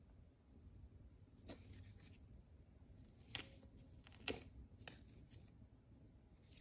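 A few sharp snips and clicks of scissors cutting a plant stem and leaves, against near silence. The two loudest come a little after the middle.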